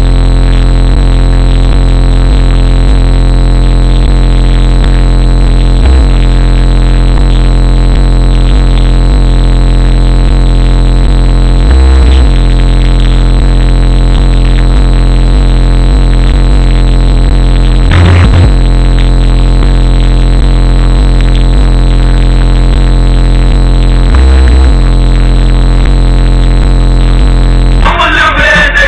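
Bass-heavy electronic music played very loud through a 15-inch DB Drive Okur K9 subwoofer: a steady deep drone with a stronger low hit about every six seconds. A busier track with more midrange comes in near the end.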